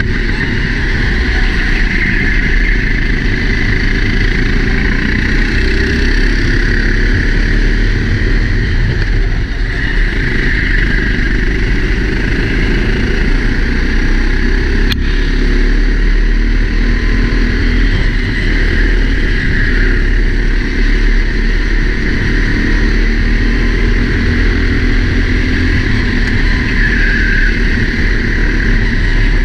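Four-stroke racing kart engine running hard through a lap, its pitch wavering as it pulls out of corners, heard from a helmet camera with wind rumble on the microphone. A single sharp click about halfway through.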